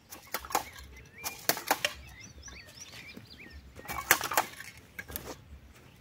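Sharp clacks and knocks from a manual jab planter worked by hand while planting corn, coming in small groups with a cluster about four seconds in. Between them, a bird gives a few short chirps.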